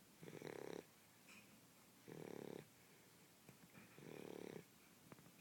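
Shar pei puppy snoring faintly: three short snores about two seconds apart, each lasting about half a second.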